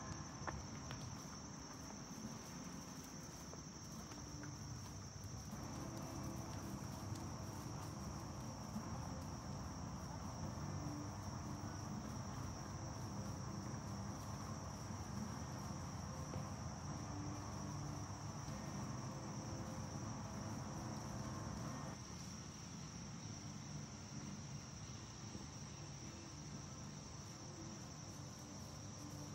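Steady, high-pitched chirring of insects in the surrounding field and trees, over a low rumbling background noise that drops in level about three-quarters of the way through.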